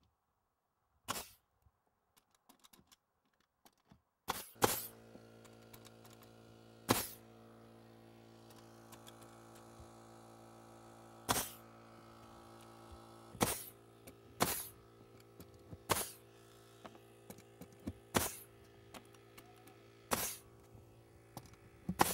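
Pneumatic nail gun shooting nails through plywood subflooring into the joists: about ten sharp shots, irregularly one to two seconds apart. A steady machine hum starts about four seconds in.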